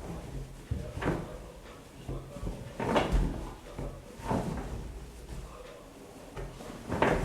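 AEG Öko Lavamat Edition 2000 front-loading washing machine running, with a low motor hum under soft thuds and whooshes every second or two as the laundry tumbles in the drum.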